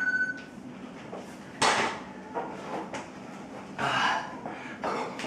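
A pair of metal plate-loaded dumbbells clinking together with a short metallic ring at the start, then a sharp knock about a second and a half in as they are set down on the foam floor mat. Quick breaths and shuffling on the mat follow.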